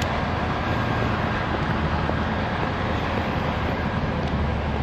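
Steady low drone of idling diesel truck engines, even throughout with no distinct events.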